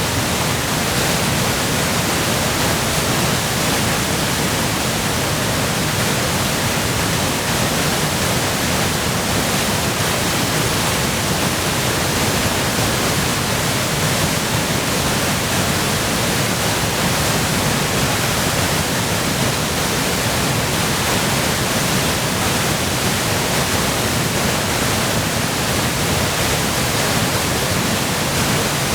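Waterfall in spate, swollen by spring snowmelt and heavy rain, a loud, steady rush of falling water.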